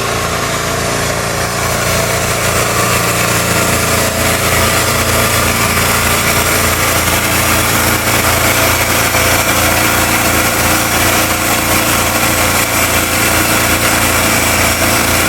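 An engine running steadily, growing a little louder over the first few seconds and then holding.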